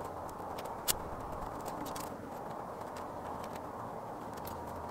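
Thin twigs clicking and crackling as they are bent and woven together by hand, with one sharp snap about a second in, over a steady low background rumble.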